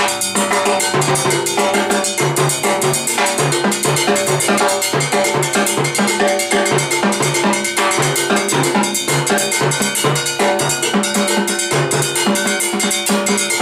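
Live Latin percussion jam: timbales and cymbal struck in a fast, steady rhythm over an electric bass playing a repeating low line.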